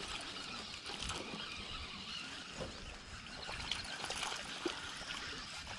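Baitcasting reel being cranked to wind in a small hooked bass, over a steady hiss of wind and lapping water, with a few light ticks.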